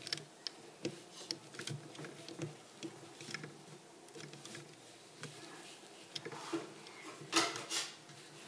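Plastic hook clicking and scraping against the pegs of a Rainbow Loom as rubber bands are lifted off. Irregular small clicks and taps, with a louder rustle near the end.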